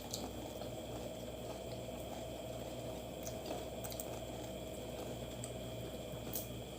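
Faint eating sounds, with soft chewing and a few small clicks, over a steady low hum that stops shortly before the end.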